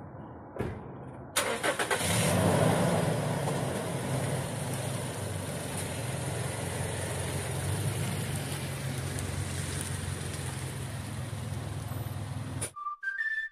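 A Toyota Innova's engine cranks and starts about a second and a half in, revs briefly, then runs steadily as the car pulls away, growing slowly fainter as it drives off. The sound cuts off suddenly near the end.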